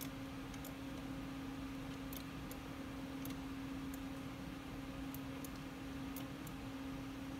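Steady low hum with faint, irregularly spaced clicks of a computer mouse being operated as the 3D view is turned and zoomed.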